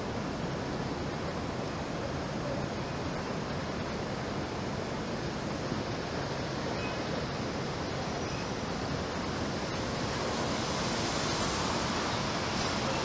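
Steady rushing noise of wind and distant city traffic, swelling a little near the end as a SEPTA GE Silverliner IV electric multiple-unit train draws near in the distance.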